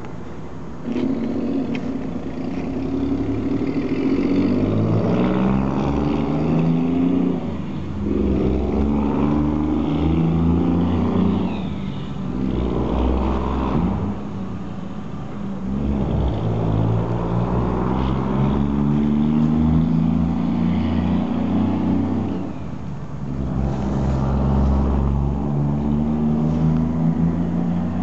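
Road traffic passing: cars and a truck accelerating along the street, their engines climbing in pitch and dropping back at each gear change, several vehicles one after another.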